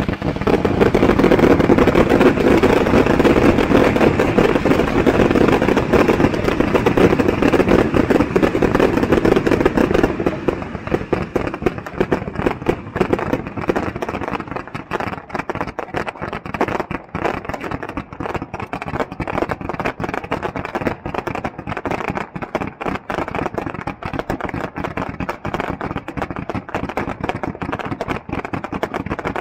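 Fireworks: ground fountains give a loud, dense hissing rush for the first ten seconds or so. After that, many quick crackles and pops from multi-shot fireworks sending up colored stars take over.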